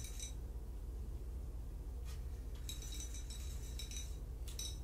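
Light clinking of glass or small hard objects in three short spells: one at the start, a longer one about three seconds in, and one near the end. A steady low hum runs underneath.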